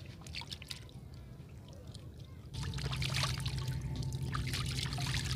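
Water splashing and dripping as a whole skipjack tuna is rinsed in a shallow pool and lifted out. About two and a half seconds in, the splashing becomes suddenly louder, over a low rumble.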